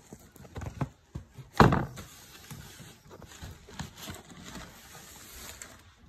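Handling noise: a few soft knocks and rustles, with one louder thump about a second and a half in, then fainter rustling.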